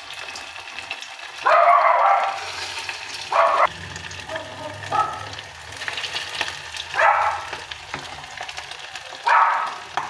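Meatballs frying in very hot oil: a steady sizzle that flares louder four times for under a second each.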